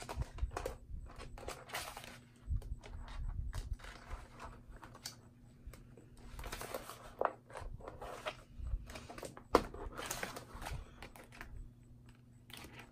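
Clear plastic binder pocket sheets rustling and crinkling as they are handled and metal nail stamping plates are slid into them, with scattered light clicks and taps. One sharp click stands out about two-thirds of the way through.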